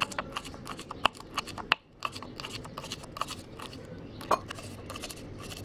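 Kitchen knife slicing green herb leaves on a wooden cutting board: quick, irregular taps of the blade against the board, with one louder knock about four seconds in.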